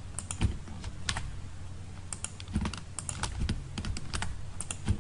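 Irregular clicking of a computer mouse and keyboard, many separate clicks, as text is selected, copied and pasted.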